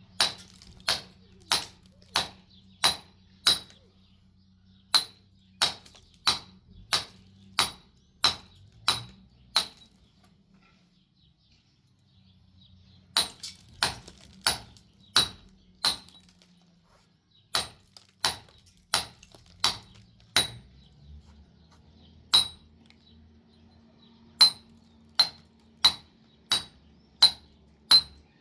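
Repeated sharp metallic strikes with a short ringing clink, about one and a half a second, in three runs separated by brief pauses.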